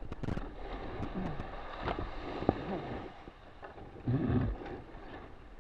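Wind buffeting the microphone and water rushing past the hull of an RS600FF hydrofoil dinghy under sail. There is a sharp knock about two and a half seconds in, and a louder low rush of wind and water about four seconds in.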